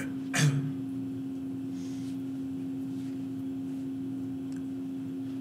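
Steady room hum with a constant low tone, and one short sound about half a second in.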